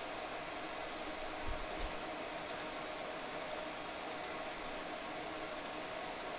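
Steady hiss of room tone with a few faint, scattered computer mouse clicks, and two soft low thumps about one and a half seconds in.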